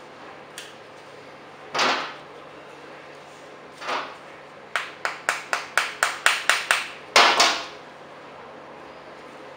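Cloth rag rubbing and wiping a small hollow handle piece: a single swish, then a weaker one, then a quick run of about ten short strokes at about four a second, ending in one longer stroke.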